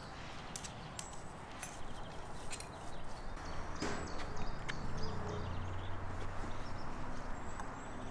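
Outdoor background noise with scattered light clicks and knocks, and a few faint short high chirps.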